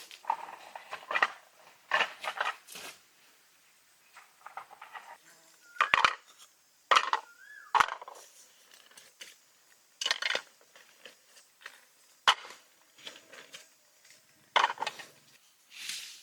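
Intermittent clinks, scrapes and crunches of cooking utensils and food being handled, in short separate bursts with brief pauses between them.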